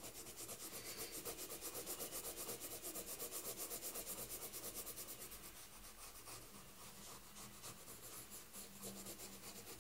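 Colored pencil rubbing on sketchbook paper in rapid, even back-and-forth shading strokes, blending greens. The strokes grow lighter after about five seconds.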